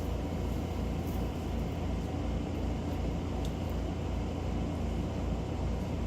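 Steady low hum of background machinery, with a faint regular pulsing in the low end.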